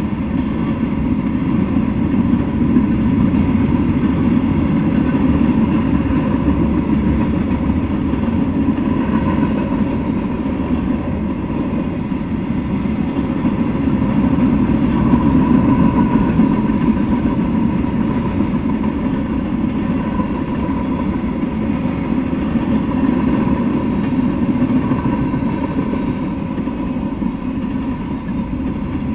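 Freight train of tank cars and covered hoppers rolling past, a steady rumble of steel wheels on the rails.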